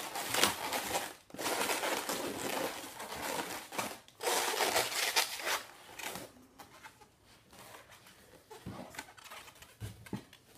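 Latex 260 twisting balloons rubbing against each other and the hands as an arm balloon is twisted onto the figure's ear twists. The rubbing comes in long stretches over the first six seconds, then grows quieter.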